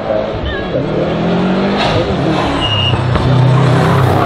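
Hillclimb race car engine running at high revs under acceleration, getting louder about three seconds in.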